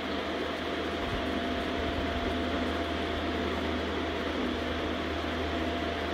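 Steady mechanical hum with a constant tone held through it.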